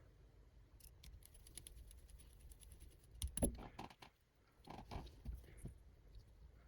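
Faint scattered clicks and taps of small plastic parts and wiring being handled while the drone's power plug is connected, with a few sharper clicks about halfway through.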